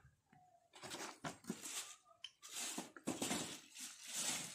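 Piston rings being taken out for fitting: irregular rustling and handling noise with a few light clicks, fairly faint.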